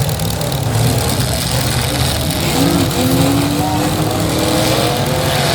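Engines of full-size demolition derby cars running and revving together, a loud steady din with pitch rising and falling.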